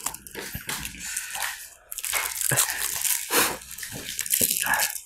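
Irregular crinkling and crunching: a KitKat wrapper being handled while the wafer chocolate is bitten and chewed.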